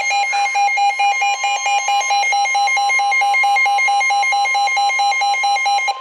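Weather alert radio sounding a NOAA Weather Radio severe thunderstorm warning. The broadcast's steady 1050 Hz warning alarm tone plays together with the radio's own rapid, shrill beeping, and both cut off near the end.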